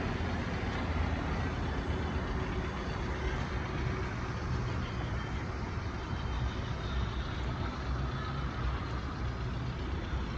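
Steady outdoor background rumble, strongest in the low end, with no distinct events.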